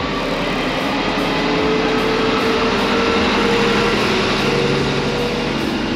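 Background music over the steady running of a vehicle engine and road noise.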